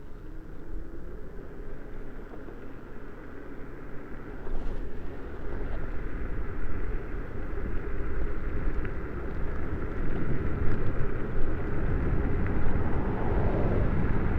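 Wind rush and rumble while riding a 72 V electric hub-motor mini bike, getting louder as speed builds.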